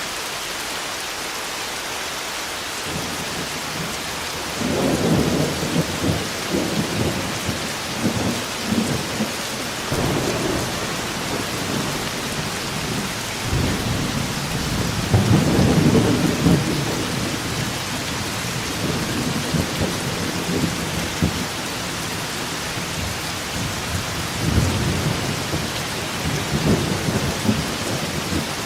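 Thunderstorm: steady rain hiss with rolling thunder coming in several long low rumbles, the first starting a few seconds in and the loudest about halfway through.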